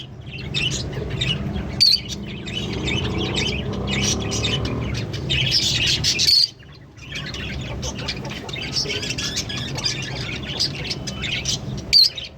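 A pair of Fischer's lovebirds chirping and chattering non-stop in rapid, high-pitched calls, with a few sharper, louder shrieks mixed in and a brief lull about halfway through.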